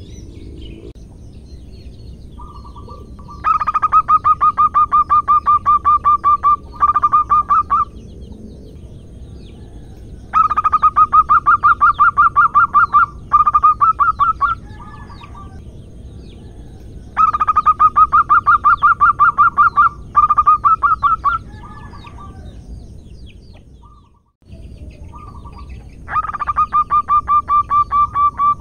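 Female zebra dove (perkutut) calling to a male: four bouts about seven seconds apart, each a fast run of repeated staccato cooing notes followed by one or two shorter runs, over a steady low background hiss.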